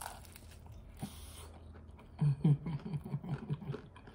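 Close-miked eating of a crispy fried chicken drumstick: a faint click about a second in, then a run of rapid low rhythmic mouth sounds, about five a second, as she chews with her mouth closed.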